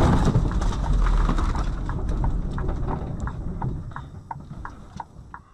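A vehicle skidding out of control on a snow-covered road: a loud rumble of tyres and body sliding through snow that fades over the first few seconds as it slows. From about two seconds in, a light regular ticking comes about three times a second.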